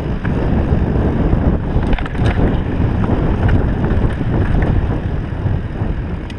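Wind buffeting the camera microphone and tyre noise of a mountain bike rolling fast over a dry dirt singletrack, a steady low rumble. A few sharp clicks of trail chatter about two seconds in.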